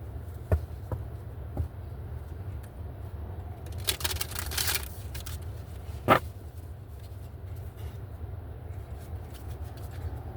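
Oracle cards and small objects handled on a table: a short rustle about four seconds in and a sharp tap about six seconds in, with a few light clicks, over a steady low hum.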